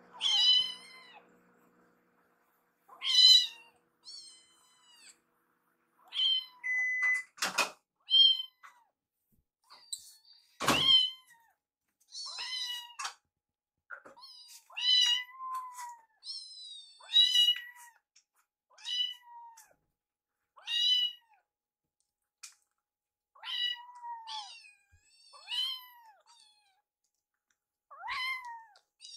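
Kittens meowing over and over, high thin cries that bend down in pitch, one every second or two. Two sharp knocks land partway through.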